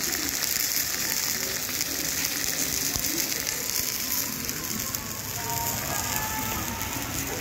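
Grilled fish sizzling on a hot iron serving plate: a dense, steady crackle.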